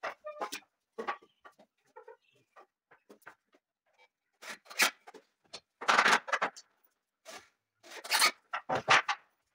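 Carpentry work on pine battens: a string of short, irregular knocks and clicks as the wood is handled on a tiled floor, with louder rasping bursts about six, eight and nine seconds in.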